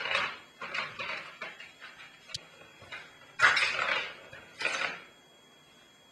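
Ball rattling and rolling inside a circular plastic track cat toy as cats bat at it, in a series of short bursts with a sharp click midway. The last and loudest bursts come about three and a half to five seconds in, then the rattling stops.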